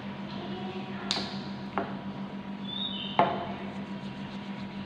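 A few sharp clicks and knocks, the loudest about three seconds in, over a steady low hum.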